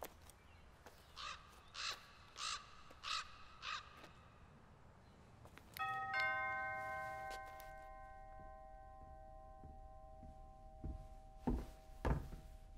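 A bird calls five times in quick succession, then a two-note doorbell chime rings out and hangs on, fading slowly over several seconds. A few dull thumps follow near the end.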